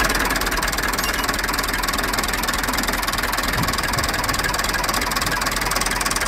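Farm tractor engine running steadily with a fast, even beat.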